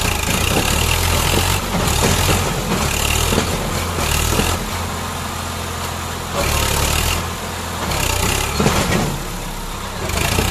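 Swaraj 744 FE tractor's three-cylinder diesel engine working hard under load, revving up in repeated surges and easing back between them as it tries to pull a loaded trolley out of mud.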